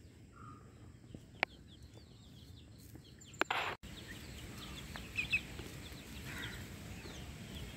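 Faint, scattered short chirps and soft clucks of young Fayoumi chickens, thicker in the second half. There is a single click about a second and a half in and a brief rustling burst around three and a half seconds in.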